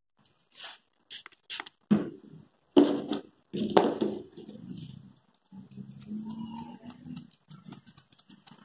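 Grooming scissors snipping a cocker spaniel's coat: a few separate snips early on and a quick run of snips near the end, with several short low vocal sounds in between.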